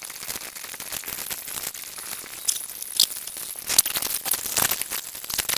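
Dense crackling, rustling noise scattered with sharp clicks and crinkles, louder and more clicky in the second half.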